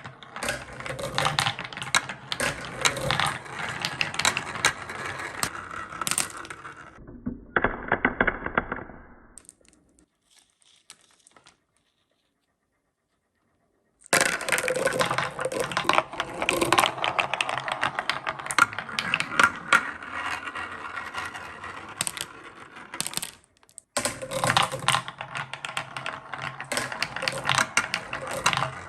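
Many marbles rolling and clacking down a wooden marble-run slope: a dense rattle of small knocks. It fades out, stops for a few seconds about ten seconds in, then starts again abruptly, with a brief break near the end.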